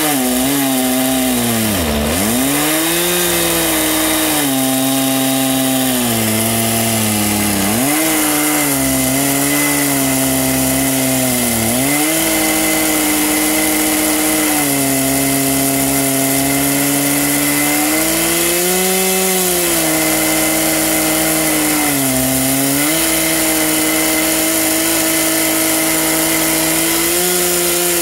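Two-stroke chainsaw in an Alaskan chainsaw mill, running at high revs while ripping a log lengthwise. Its pitch sags briefly several times, most often in the first half, as it loads up in the cut.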